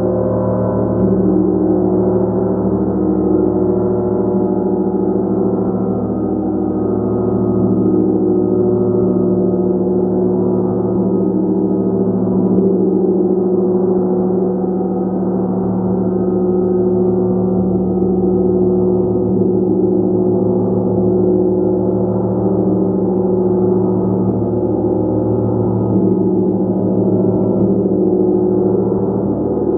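A gong played continuously, its many overlapping tones held in a steady, dense wash with no single strike standing out.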